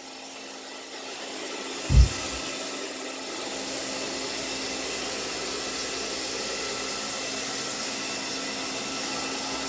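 A low thump about two seconds in, followed by a steady mechanical whir that swells slightly and then holds even.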